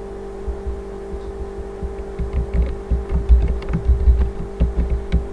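Computer keyboard typing: a run of quick key clicks with dull thumps, growing busier about two seconds in, over a steady electrical hum.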